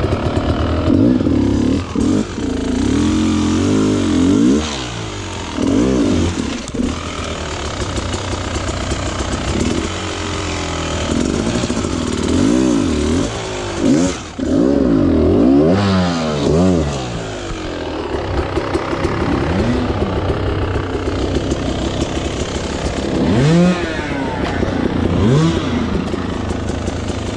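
Off-road dirt bike engine being ridden through rough ground, revved up and down again and again in short throttle bursts, its pitch rising and falling many times.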